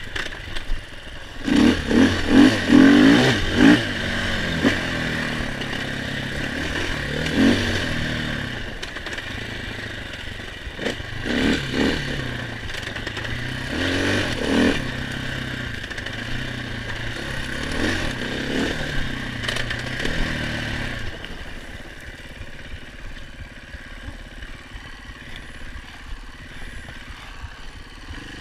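KTM 500 EXC single-cylinder four-stroke enduro motorcycle engine revving in repeated bursts under throttle, loudest in the first few seconds. The engine sound falls away about three quarters of the way through, leaving a quieter steady noise.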